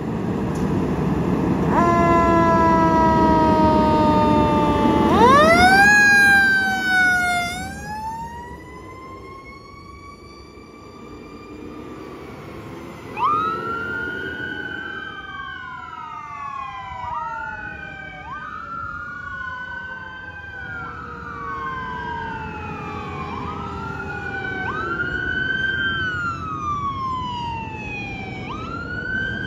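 Fire trucks leaving on an emergency call. A fire engine's diesel engine rumbles as it pulls out and gives a horn blast of about three seconds. Then electronic sirens wind up and wail, each sweep rising quickly and falling slowly about every two seconds, with two sirens overlapping in the second half.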